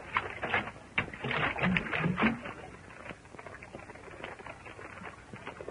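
Horses' hooves shifting and stamping on rocky ground: irregular clicks and knocks, louder in the first half and fainter after.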